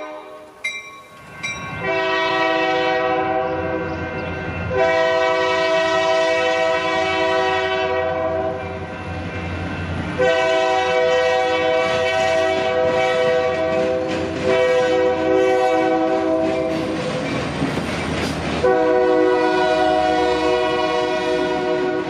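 Freight locomotive's multi-chime air horn sounding a string of long blasts, four in all, each a steady chord lasting two to six seconds, over the rumble and wheel clatter of the passing train.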